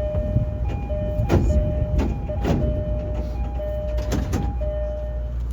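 Commuter train door chime sounding over and over in two tones while the doors close, with several sharp bangs among the chimes, over the low rumble of the standing train.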